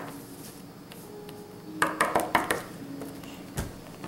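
Small plastic toy figures and accessories clicking and clattering on a tabletop as they are moved by hand: a quick run of clicks about two seconds in, and a dull thump near the end.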